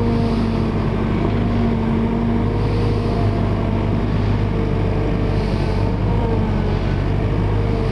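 Diesel engine of an Atlas wheeled excavator running steadily while its hydraulic boom and bucket move, a continuous low hum with a faint steady whine over it.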